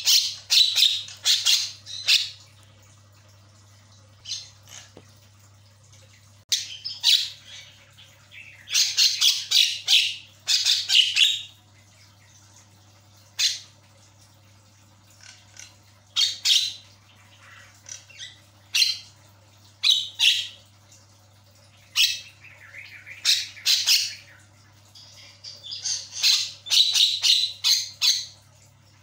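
Javan myna (jalak kebo) calling: loud, harsh chattering squawks in bouts of one to four seconds, with short pauses between them.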